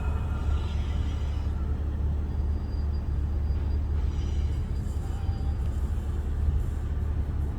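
Cessna Citation Encore's twin turbofan engines at takeoff power: a loud, steady low rumble with a faint high whine.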